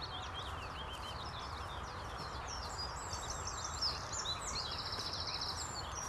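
Songbirds singing: a mix of quick chirps and whistled notes, with a fast trill a little past the middle, over a steady low rumble and hiss of outdoor background noise.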